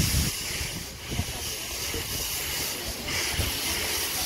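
Steam locomotive, a Victorian Railways R class 4-6-4, hissing steam steadily over a low rumble as it rolls slowly past. The hiss grows louder about three seconds in.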